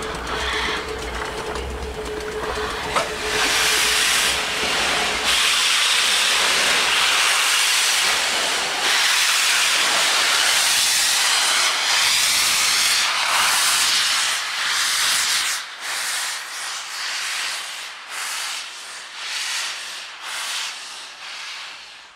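LNER A3 Pacific 60103 Flying Scotsman blowing steam from its open cylinder drain cocks: a loud steady hiss that breaks into separate uneven blasts in the last several seconds.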